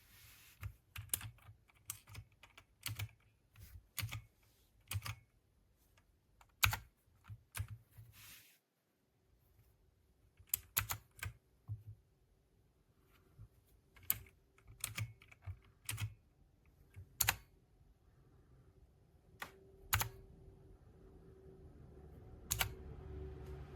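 Keys of a 60% mechanical gaming keyboard with clicky blue switches pressed one at a time, each a sharp separate click, mostly half a second to a second apart. The sound drops out briefly about nine seconds in.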